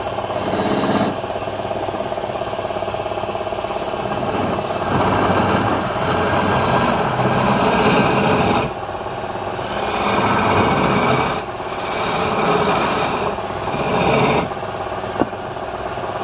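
Wood lathe running while a hand chisel cuts into a spinning wooden workpiece, in several scraping passes a second or two long over the steady run of the machine.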